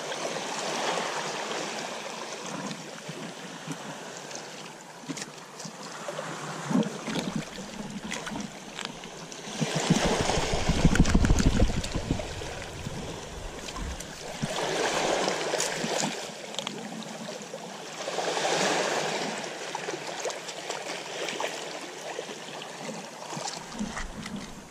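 Shallow seawater sloshing and splashing, swelling louder several times, with the loudest stretch, deep and rumbling, about ten seconds in.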